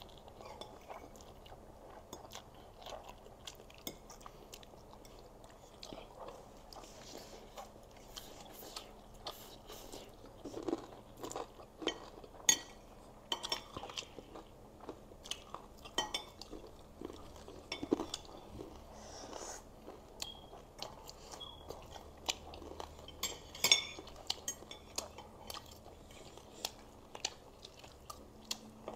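Two people eating spicy fried noodles: mouth sounds of slurping and chewing, with sharp clicks of forks and spoons on ceramic plates scattered throughout, the loudest about 12 and 24 seconds in.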